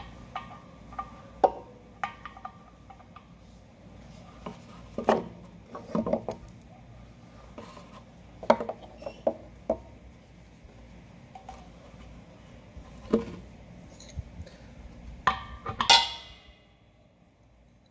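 Brass fitting and braided metal hose of an extended tank-drain kit clinking and tapping as the fitting is screwed by hand into the bottom drain port of an air compressor tank. Light clicks and knocks come at irregular times, with a louder clatter near the end.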